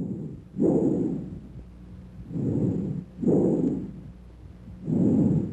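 Bronchial breath sounds as heard through a stethoscope over the chest: about three breaths, each a shorter inspiratory sound, a brief silent gap, then a longer expiratory sound. They are louder and higher in pitch than vesicular sounds.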